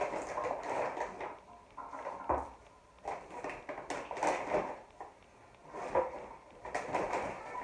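Large McDonald's paper takeaway bag rustling and crinkling as it is opened and rummaged through, with a couple of sharp knocks of cups being set down on the table.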